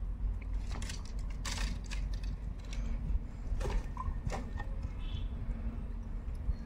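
A steady low rumble with scattered short clicks and rustles of an angler handling his rod and gear on the rocky bank.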